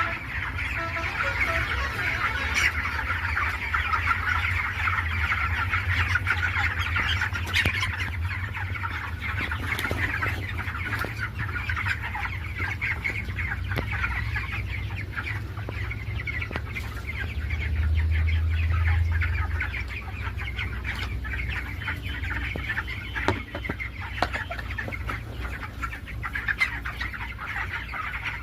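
A flock of poultry-farm chickens clucking and calling over one another in a continuous, dense chatter. A steady low rumble runs underneath and swells briefly about two-thirds of the way through.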